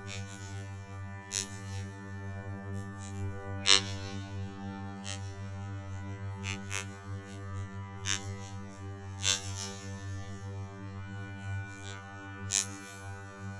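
Slowed-down sound effect: a steady low hum with a stack of even overtones, broken by irregular sharp crackles, the loudest about four seconds in.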